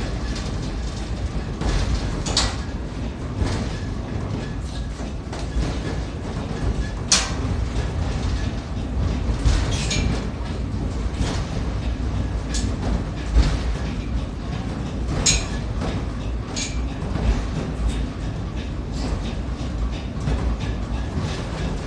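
Pic du Jer funicular car running along its rails, heard from inside the car. A steady low rumble is broken every few seconds by a sharp click or clack, some with a brief metallic squeal.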